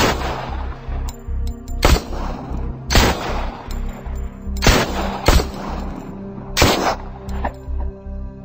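Handgun shots fired singly, about seven of them a second or two apart, each followed by a ringing echo, over background music with a steady low beat.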